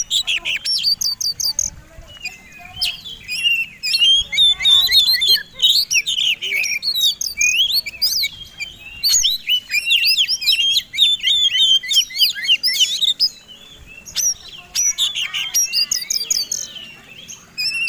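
Oriental magpie-robin (kacer) singing a loud, fast, varied song of whistles, chirps and trills in rapid runs, with a brief pause about three-quarters of the way through. It is the aggressive song of a competition bird.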